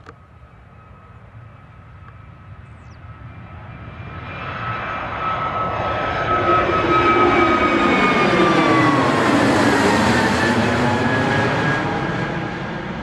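Airbus A320-251N with CFM LEAP-1A turbofans taking off and climbing out overhead. A faint steady engine whine grows into a loud jet roar from about four seconds in. It peaks around eight to ten seconds, and its whine drops in pitch as the aircraft passes.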